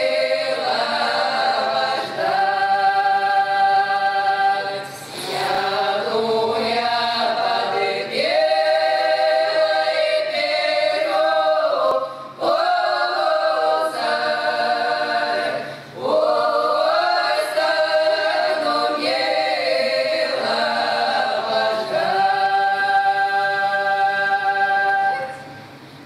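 Women's folk choir singing a Russian folk romance a cappella in several-part harmony, in long held phrases with short pauses between them.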